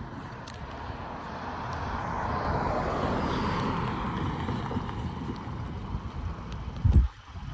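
CSX diesel freight train passing, its rumble and rail noise swelling to a peak two to three seconds in and then easing. A brief low thump near the end.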